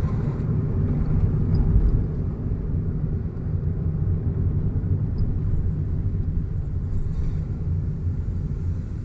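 Steady low rumble of a car driving along a road: engine and road noise running evenly.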